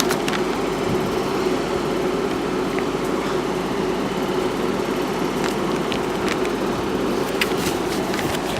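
Electric train at the station platform giving a steady mechanical hum with a faint held tone, unchanging in level.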